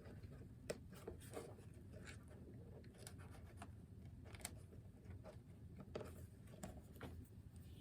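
Faint, scattered small clicks and rubbing of hands handling stiffened crocheted snowflake pieces while gluing them together, over low room hum.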